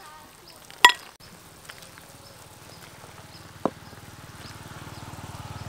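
A metal ladle clinks once against the soup dishes with a short ring, about a second in, and a fainter tap follows later. Under it a low buzzing hum grows steadily louder toward the end.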